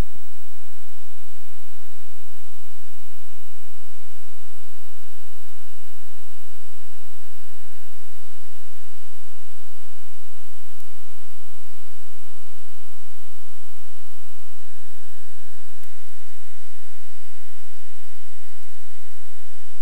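Loud, steady electrical mains hum, a dense stack of unchanging tones with no speech through it, which shifts slightly about sixteen seconds in. Such a hum typically comes from a fault in the sound system or recording chain, such as a ground loop or a loose cable.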